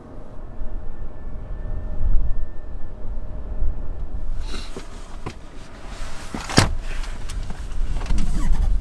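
A car with a low rumble; about halfway a rush of outside air noise comes in, followed by a sharp click, like a car door being opened.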